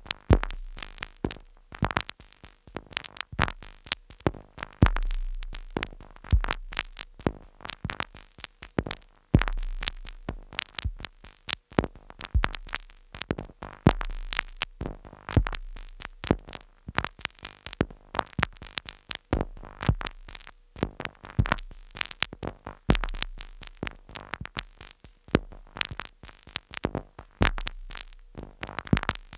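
Two Behringer Neutron analog synthesizers sequenced by a Korg SQ-10, playing a dense pattern of glitchy clicks and short noise hits over recurring deep bass notes about a second long.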